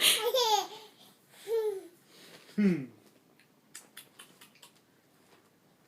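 Baby laughing and babbling in three short bursts, the last falling in pitch, then a few faint clicks.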